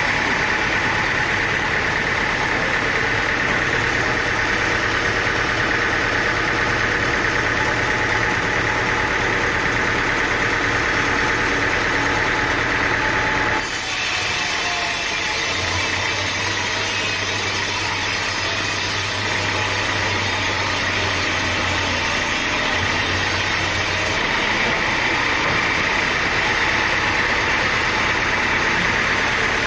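Sawmill engine running steadily. About 14 seconds in the sound changes abruptly, and a low steady hum joins it for several seconds.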